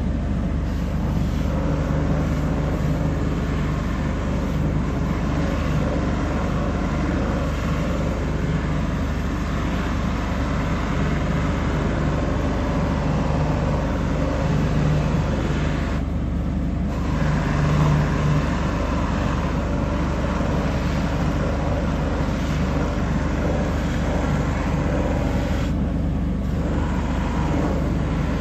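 Landis 12K shoe finishing machine running steadily with a low motor hum. Its sound thins briefly twice.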